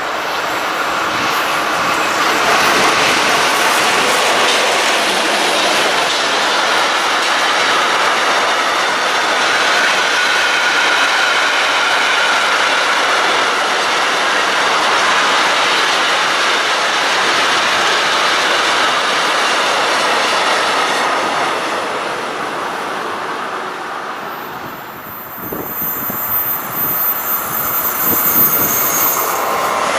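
A train running past on the rails: steady wheel-on-rail rolling noise with some clatter and a thin squeal. About five seconds before the end it dips and changes, with a high thin whine over it.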